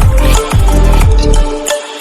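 Electronic music with heavy bass: deep falling bass hits and sharp drum strikes over sustained synth tones, the bass dropping out briefly near the end.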